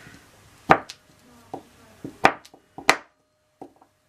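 Chef's knife chopping crumbly cold-process soap into chunks on a wooden tabletop: a few sharp knocks of the blade, the loudest under a second in and twice a little past two seconds, with lighter taps between.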